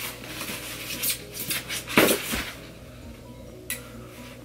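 Rubbing, scraping and knocking of a foam package box being turned over and handled. There are several short scrapes, with a sharp knock about two seconds in.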